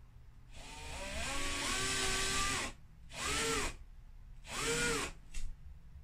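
Cordless drill with a 1/4-inch bit drilling a hole in the wall for a plastic wall anchor. There is one long run of about two seconds with the motor's pitch rising as it speeds up, then two short bursts whose pitch rises and falls, and a sharp click near the end.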